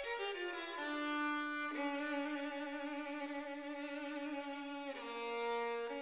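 Background violin music: slow, long held notes, with the pitch stepping down about five seconds in.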